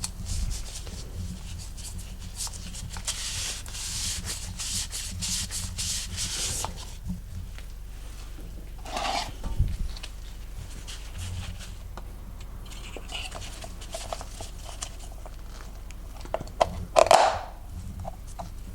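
Rubbing and scraping strokes, with a short clunk about nine seconds in and a louder clatter near the end.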